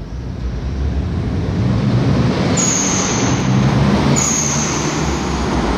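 Dodge Stealth twin turbo's 3.0 L V6 running as the car drives toward the listener, its sound growing louder and echoing off the concrete of a parking garage. A high thin whistle cuts in twice, about two and a half and four seconds in.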